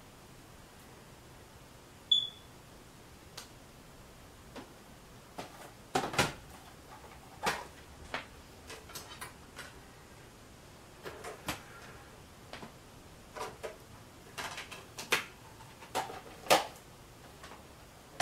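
Scattered short clicks and knocks of objects being handled, irregular and uneven in loudness, with one brief high chirp about two seconds in.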